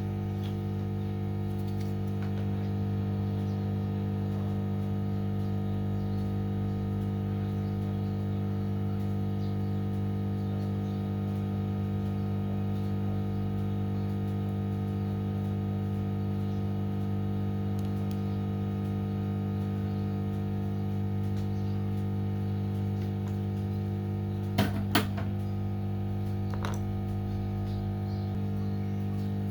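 Steady electrical hum, even and unchanging, with two sharp clicks a few seconds before the end.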